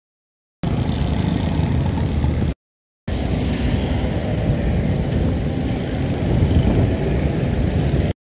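Loud, low outdoor rumble of road traffic. It comes in two stretches cut sharply by edits: it starts abruptly, drops out for half a second about two and a half seconds in, then resumes and stops abruptly near the end.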